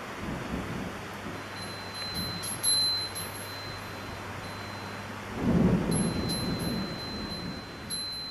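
Heavy summer thunderstorm downpour hissing steadily, with a low rumble of thunder about five and a half seconds in, the loudest moment. A high chime tinkles on and off over the rain.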